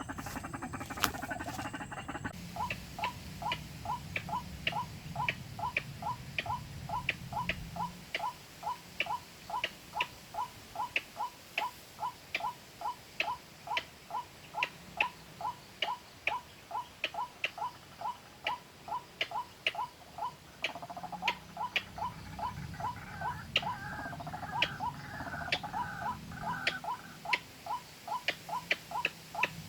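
Recorded white-breasted waterhen call played through a phone speaker as a hunting lure: one short note repeated evenly about twice a second. A second, warbling bird call joins for a few seconds past the middle.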